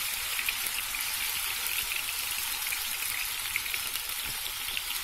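Chicken breast strips frying in hot vegetable oil in a skillet: a steady sizzle with many small crackles.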